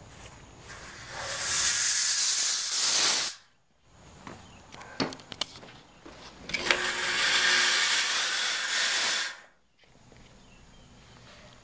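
Chauvet Hurricane 1600 fog machine blasting fog in two loud hissing bursts of about two to three seconds each, each one cutting off abruptly. A few sharp clicks fall between the bursts.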